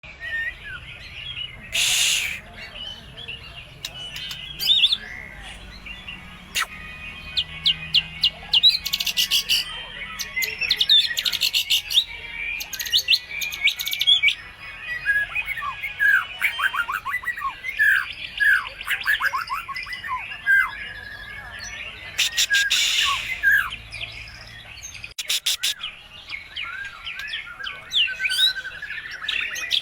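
White-rumped shama (murai batu) singing a varied, energetic song of whistles, quick trills and falling notes, broken by several harsh rasping chatters. The song is packed with borrowed calls of other birds.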